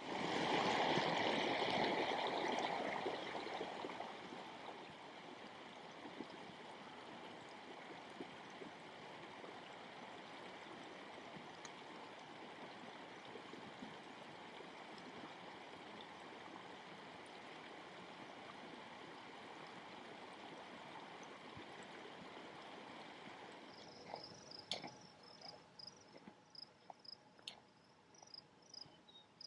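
Steady rush of running water, loudest in the first few seconds and then settling. Near the end, insects start chirping in a quick, high, pulsing trill.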